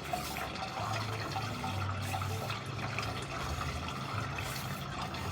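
Water running steadily through a sewer drain line, with a low hum that comes and goes underneath.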